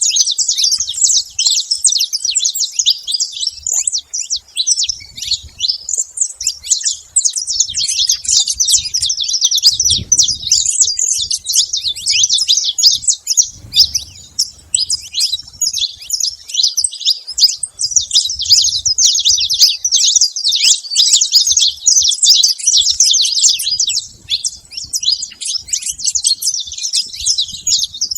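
Saffron finch singing non-stop: a long, rapid run of high chirping notes with hardly a pause.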